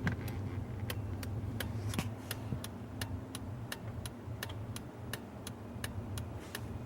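Turn signal flasher in a 1988–98 Chevy/GMC pickup clicking steadily with the signal on, about three clicks a second, with a low steady hum underneath.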